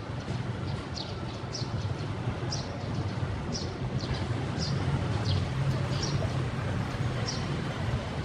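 Outdoor ambience: short high chirps repeating irregularly, about every half second to a second, over a steady low rumble.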